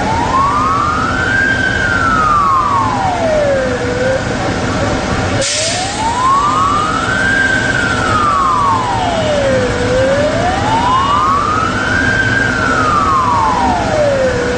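Emergency-vehicle siren on a slow wail, rising and falling about every four to five seconds over a steady background of traffic and water noise, briefly broken off and picked up again about five seconds in.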